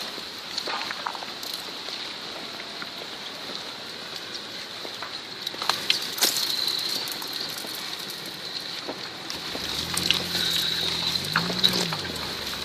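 Landslide of a mine spoil heap: earth and rock sliding with a steady crackling, pattering rustle and scattered sharp cracks of tumbling rubble. Near the end a vehicle engine joins in, its pitch rising and falling once.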